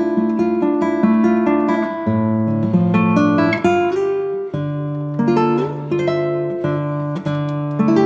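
Background music: a plucked string instrument playing picked notes over held chords, the chord changing about every two seconds.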